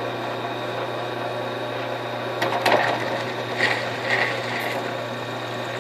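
Small benchtop drill press running steadily. About halfway through there are a few short knocks, then three short squeals as the cutter works the hole.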